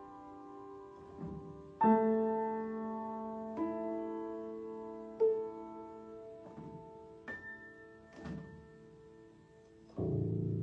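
Slow, improvised piano piece: single notes and chords struck a second or two apart, each left to ring and fade, with a fuller, deeper chord near the end.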